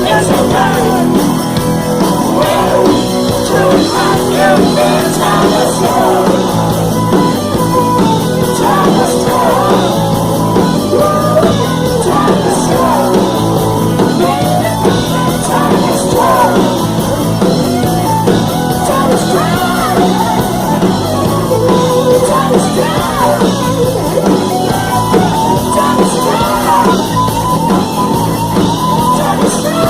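Rock band playing loudly, with sung and shouted vocals over the music.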